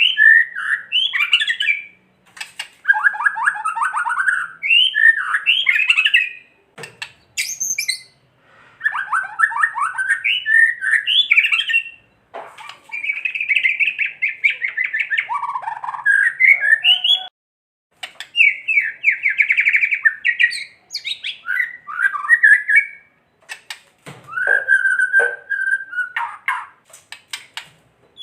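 White-rumped shama (murai batu) singing in about six bouts of a few seconds each with short gaps between, harsh rapid rattling 'kretekan' phrases mixed with quick whistled notes. This rattling is the agitated, challenging song that keepers play to provoke other shamas into singing.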